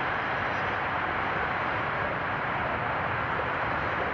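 Diesel locomotive of a UTA FrontRunner commuter train approaching slowly, its engine running with a steady, even noise.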